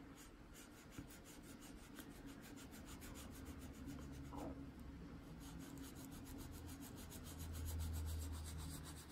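Faint, steady rubbing on paper: an ink blending tool working Distress Ink onto the page in a run of short strokes.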